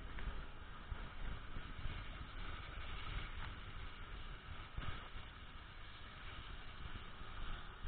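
A vehicle moving along a snow-covered road: a low, steady rumble of engine and tyres, with a few faint knocks.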